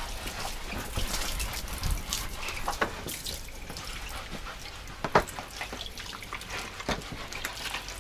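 Garden hose running water onto a wet teak deck, splashing and trickling as the cleaner is rinsed off. A few sharp knocks cut through, the loudest about five seconds in.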